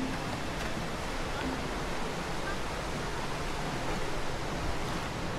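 Steady rush of falling water from a river waterfall, an even noise with no letup.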